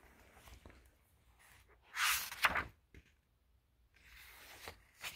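A page of a hardcover picture book being turned by hand: one short paper swish about two seconds in, then fainter rustling near the end.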